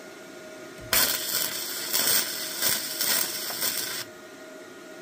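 Gasless flux-core MIG welding arc from a Bestarc MIG145 welder crackling for about three seconds, starting about a second in and stopping abruptly when the trigger is released.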